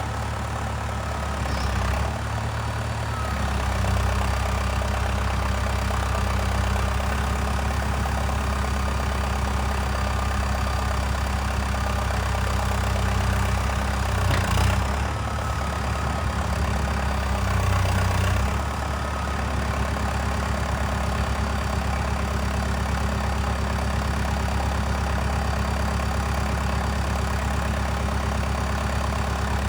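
Valtra 815 backhoe loader's diesel engine running steadily. Its note and loudness shift a few times, about two, four, fourteen and eighteen seconds in, as the load changes.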